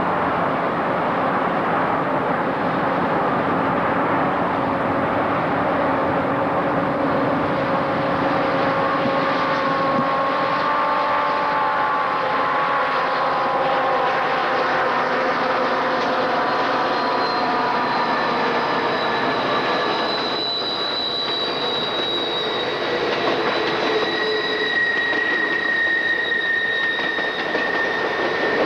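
Amtrak passenger train, a diesel locomotive followed by bilevel Superliner cars, rolling past close by with its steel wheels squealing against the rails. The squeal starts as several wavering notes and rises to a higher, steady note in the second half.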